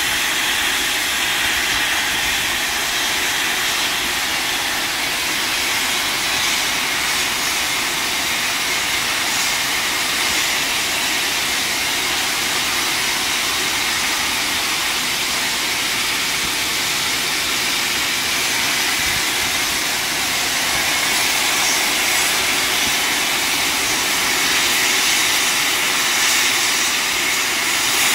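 Steam locomotive 3801, a NSW C38 class 4-6-2 Pacific, letting off steam: a steady, loud hiss that swells slightly near the end.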